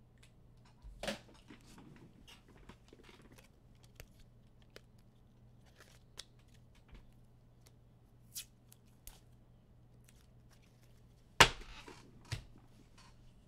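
Scattered light clicks and rustles of handling on a tabletop, with one sharp, louder click near the end and a smaller one a second later, over a faint low hum.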